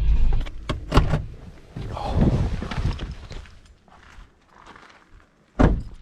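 A car's low driving rumble cuts off at the start. Then come a couple of sharp knocks and some rustling and clattering, and one loud thud near the end as a car door is shut.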